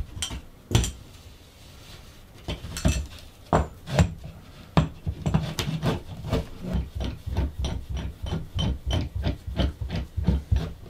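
Adjustable metal ceiling-fan brace bar being turned by hand inside a ceiling hole to expand it out toward the joists, making a run of sharp clicks and knocks. The clicks are scattered at first, then come several a second in the second half.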